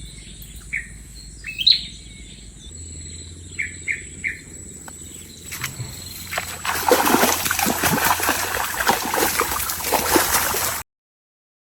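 Birds chirping with short calls, then a loud, irregular splashing and churning of water for about four seconds that cuts off suddenly.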